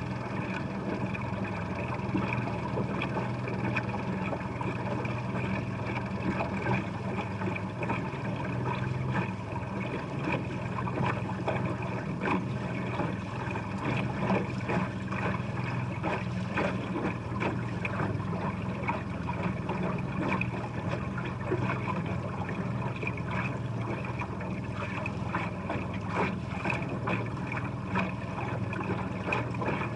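Boat motor running steadily.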